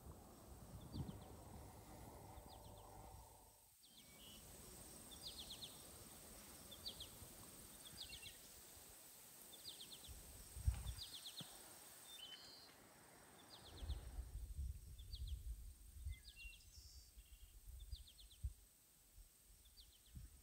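Quiet pasture ambience: a bird repeats a short, quick chirping call about once a second over a faint hiss. Low wind rumble on the microphone comes and goes, strongest about eleven and fifteen seconds in.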